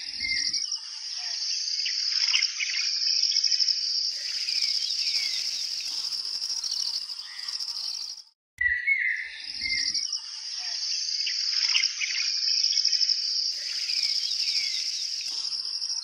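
Nature ambience of insects trilling steadily with small birds chirping over them. The track cuts to silence for a moment about eight seconds in and then starts the same loop again.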